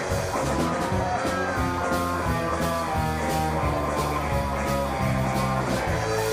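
Live rock band with electric guitar, bass guitar and drum kit playing an instrumental passage with no singing, and a steady drum beat. Near the end the bass pattern gives way to a held low chord.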